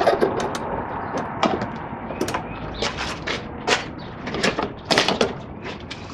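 Push mower being lowered from its side back onto its wheels on concrete: a string of irregular clunks, knocks and rattles from the deck, wheels and handle, loudest about four and five seconds in.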